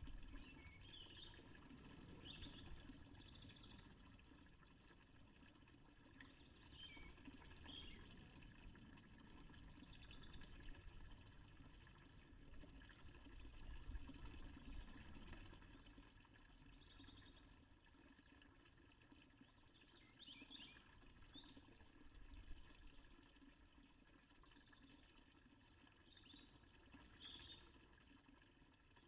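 Faint water of a fountain splashing steadily, with small birds chirping and trilling now and then.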